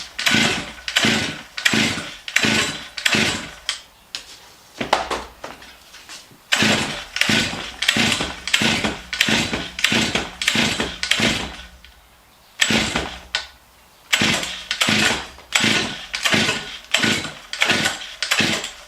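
Stihl MS 661 C-M two-stroke chainsaw being pull-started cold: the starter cord is yanked over and over, about two pulls a second in three runs with short pauses, the engine turning over on each pull without catching.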